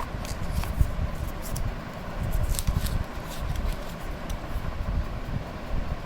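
Light clicks and rustles of packaging being handled during an earbuds unboxing, over a steady low rumble.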